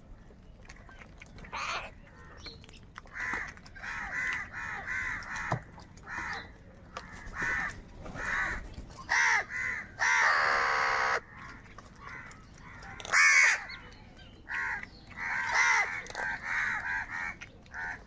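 A flock of house crows cawing, many short harsh caws overlapping one after another. About ten seconds in, one long, steady call lasts about a second, and a loud caw follows a few seconds later.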